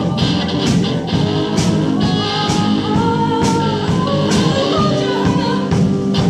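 Music: a song sung over instrumental backing with a steady beat.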